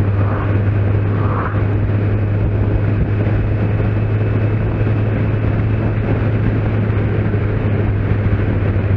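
Kawasaki Z750S inline-four engine running steadily at cruising speed, with wind rushing over the onboard microphone.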